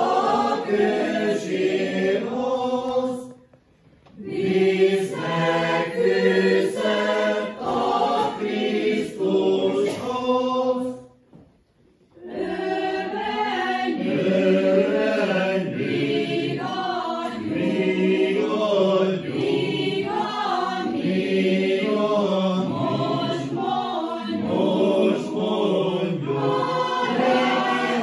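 Mixed church choir of women's and men's voices singing, with two short breaks between phrases, about four seconds in and again around twelve seconds in.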